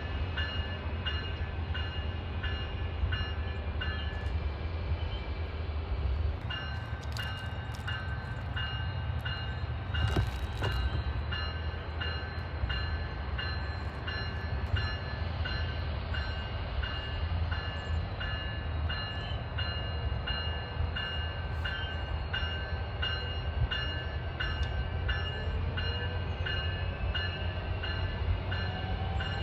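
A train rolling by with a steady, heavy low rumble, while a high ringing repeats about twice a second over it.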